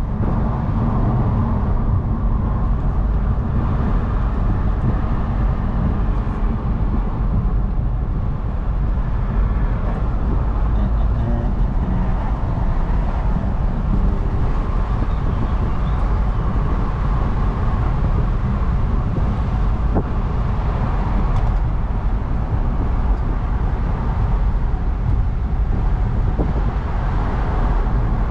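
Steady wind and road noise of an Audi A5 Cabriolet driving at speed with its top down, with the car's engine running under it.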